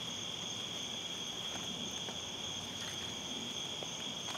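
Steady, high-pitched chorus of night insects, an unbroken shrill drone.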